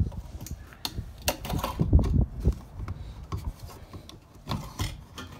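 Handling noise as a plastic fuel pump assembly is lowered into a car's fuel tank opening and worked into place: irregular clicks, knocks and rubbing, loudest about two seconds in.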